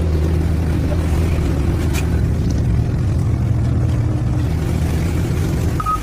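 Heavy road-construction machinery's diesel engine running at a steady drone. A rapid high electronic beeping starts just before the end.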